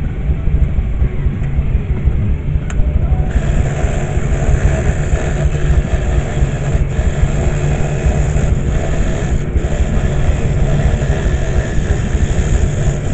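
Scroll saw running with a steady low hum; from about three seconds in, its reciprocating blade is cutting through a thin wooden portrait blank, adding a steady sawing hiss.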